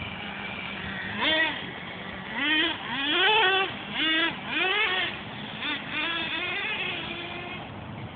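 Remote-control car's motor revving in a series of short bursts, its whine gliding up and falling back about ten times, over steady street noise.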